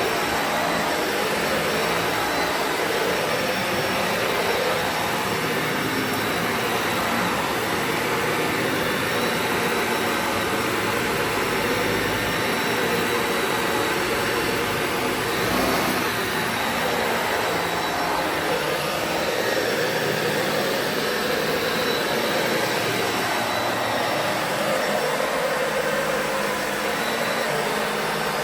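Dyson Ball Animal 2 Total Clean upright vacuum cleaner running steadily on carpet. Its tone wavers slightly up and down throughout.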